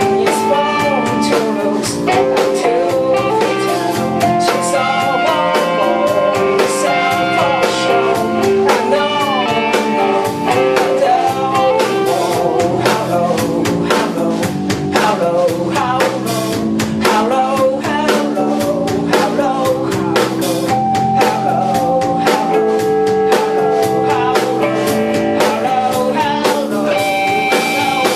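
Punk rock band playing live: electric guitar and drum kit with singing.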